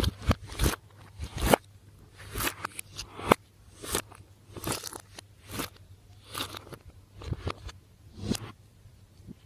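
Slime being squeezed and worked by hand, giving irregular crackling, popping clicks about one or two a second.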